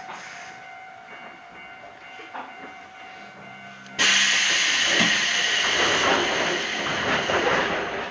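Iyo Railway 3000 series electric train standing quietly with a faint steady hum. About halfway through, a loud hiss of compressed air from its pneumatic system starts suddenly and lasts about four seconds.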